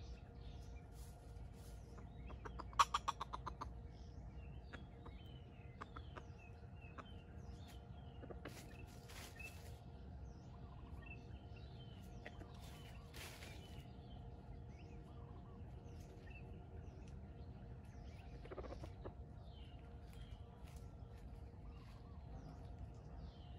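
Wild junglefowl and small birds in the open: a short rapid run of sharp clucks about three seconds in, over scattered light bird chirps. There are a few brief rustles along the way and a faint steady drone underneath.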